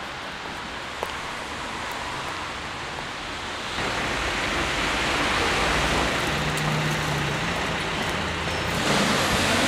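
City street traffic noise, a steady hiss of cars going by, getting louder about four seconds in.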